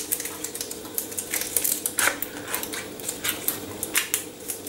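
Rapid, irregular light clicks and taps from handling a can of condensed milk over a blender jug, over a faint steady hum.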